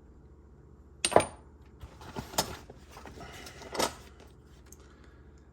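Chrome-plated steel sockets clinking against each other as they are handled: a few sharp metallic clinks, the loudest about a second in with a brief high ring.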